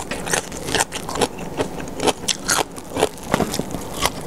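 Close-up chewing of crunchy papaya salad with crisp lotus stems: irregular wet crunches and mouth clicks.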